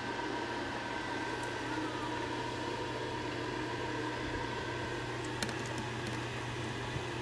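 Steady room hum with a few faint, steady whining tones above it. A sharp click comes about five and a half seconds in, and a softer one near the end.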